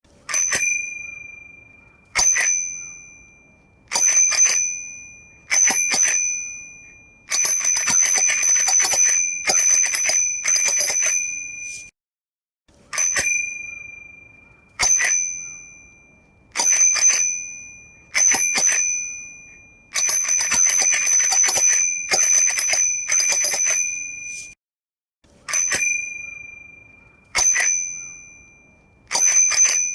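Bicycle bell ringing: single dings that ring out and fade, about one every two seconds, alternating with two stretches of rapid trilled ringing, each about four to five seconds long.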